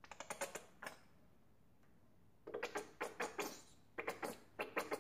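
Thin plastic cup crinkling and crackling as it is squeezed in a gloved hand, in several short bursts of quick clicks.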